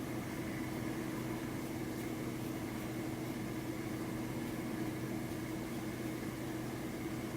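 Steady machine hum with a few constant tones, holding even throughout without any rise and fall.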